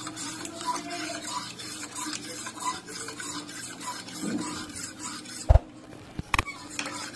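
Metal spoon stirring orange juice in a stainless steel bowl, with a steady run of light scrapes and small clinks against the bowl. Two sharp knocks come near the end.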